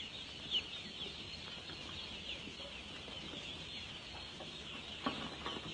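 A brood of Pekin ducklings peeping: many overlapping short, high peeps at once, steady throughout.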